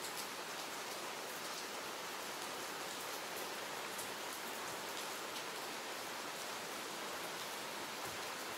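Steady hiss of light rain falling on a hard surface, with a few faint scattered drop ticks.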